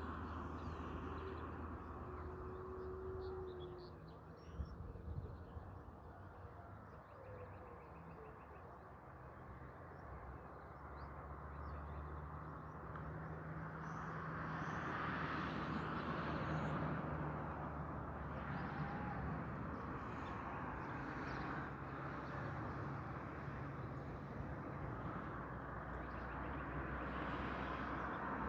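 Outdoor ambience: scattered short bird chirps over a steady background noise that swells a little about halfway through.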